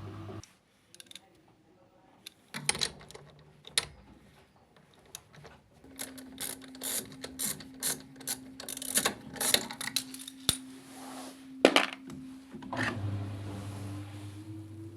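Clicks, knocks and clatter of tools and metal parts being handled, thickest in the middle with one sharp knock near the end. A steady hum runs under the clatter from about six seconds in, then gives way to a hum slowly rising in pitch.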